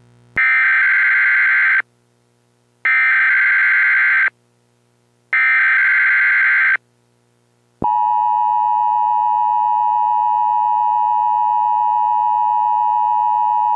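Emergency Alert System test signal: three bursts of the digital SAME header, each a harsh warbling data screech of about a second and a half with roughly a second's gap between them. A little past halfway the steady two-tone EAS attention signal comes on and holds.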